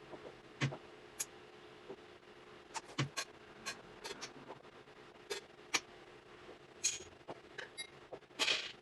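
Buttons and controls of an Akai MPC being pressed by hand: scattered, irregular plastic clicks, a dozen or so spread across the stretch.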